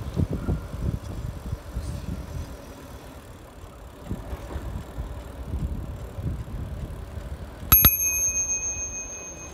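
Bicycle bell rung twice in quick succession near the end, its clear ring dying away over a second or so. Under it, a low, uneven wind rumble on the microphone from riding along.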